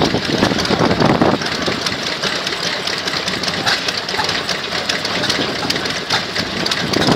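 Vintage engine running steadily with a fast, rhythmic mechanical clatter of repeated clicks.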